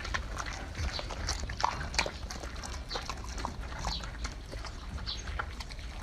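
Pet animals feeding and moving about: a continual run of short scratchy clicks and brief high squeaks over a steady low hum.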